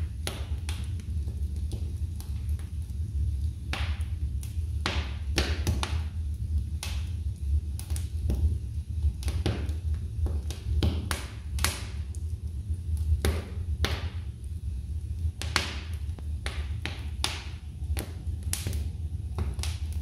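Wood fire burning in an open fireplace: logs crackling with irregular sharp pops and snaps, sometimes several close together, over a steady low rumble.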